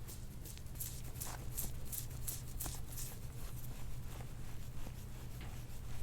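Quick, repeated rubbing strokes on bare skin during soft-tissue work on the back, about two to three short swishes a second, over a steady low hum.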